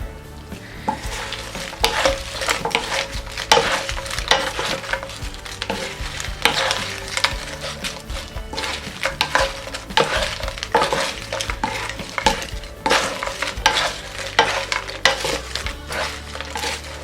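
Fried vegetable chips being stirred in a sizzling pan of melted butter and honey: a busy run of crisp scraping and rattling strokes over the sizzle, starting about a second in.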